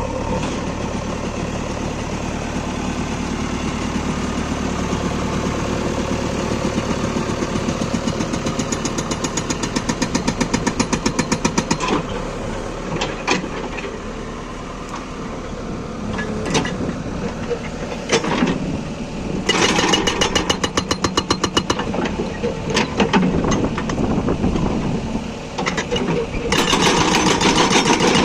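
JCB 3DX backhoe loader's diesel engine running steadily while its hydraulic rock breaker hammers hard stone in three bursts of rapid blows, with a pause between each.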